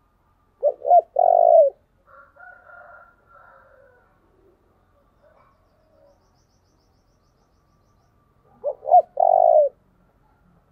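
Spotted dove cooing: two calls about eight seconds apart, each two short coos followed by one longer coo. Faint bird chirps come between them.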